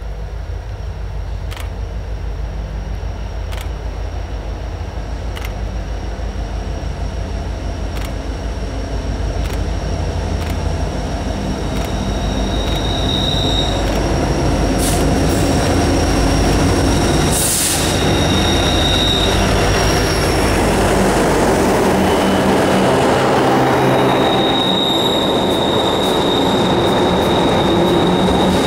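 Union Pacific freight train led by EMD SD70ACe diesel-electric locomotive UP 1983: the low engine drone grows louder as the locomotive approaches and passes about two-thirds of the way in. Then covered hopper cars roll by with a steady rumble, and high wheel squeal comes and goes.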